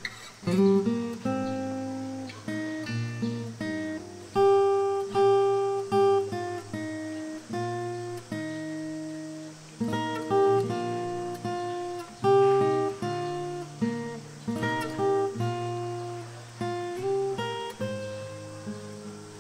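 Background music: an acoustic guitar playing a plucked melody over lower accompanying notes, each note struck and then fading.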